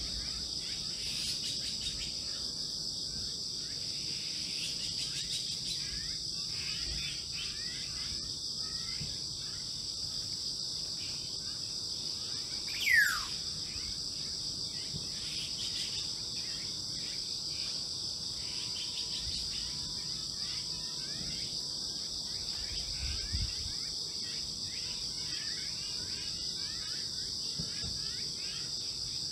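Steady high-pitched chorus of crickets and other insects. About thirteen seconds in, a bird gives a single loud whistle that falls steeply in pitch.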